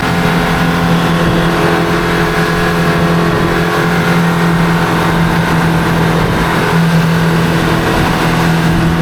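Boat engine running at a steady speed, heard on board: a constant low drone with water and wind noise, starting abruptly.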